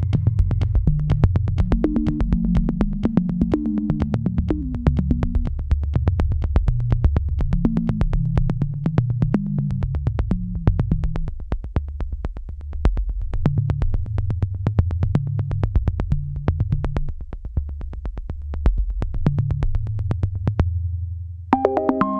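Background electronic music with a steady beat and a low synthesizer bass line; the bass drops out briefly and a new, higher synth melody comes in near the end.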